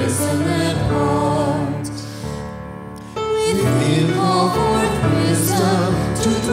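A worship song sung by voices over instrumental accompaniment. The sound fades down a couple of seconds in at the end of a line, and the next sung line comes back in at full level about three seconds in.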